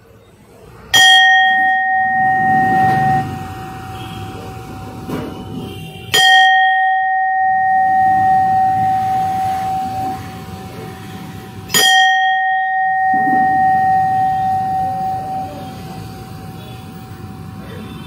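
Large hand-held bronze temple bell rung three times, each stroke giving a clear steady ring with higher overtones that fades over several seconds. It is a sound check of the metal: a long clear ring is the sign the maker looks for in pure bronze rather than brass.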